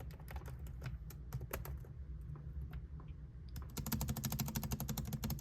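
Lenovo IdeaPad 3i laptop keyboard being typed on: scattered key clicks at first, then, about two-thirds of the way in, a fast, even and louder run of clicks.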